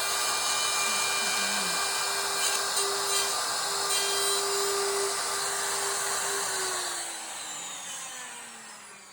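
DeWalt router running at speed, cutting a shallow hinge recess in the edge of a hardwood cabinet door. It is then switched off and winds down, its pitch falling and fading over the last two or three seconds.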